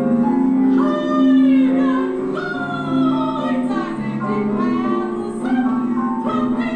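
Music: a singing voice with sliding, held notes over a steady low sustained accompaniment.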